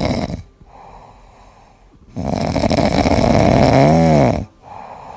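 Domestic cat snoring in its sleep. A loud snore ends about half a second in, followed by quieter breathing. A second, longer snore starts about two seconds in, with a whistling tone that rises and falls near its end.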